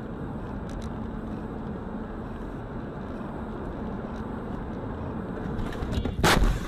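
Steady road and engine noise inside a moving car, then a sudden loud bang about six seconds in as the car is hit in a collision.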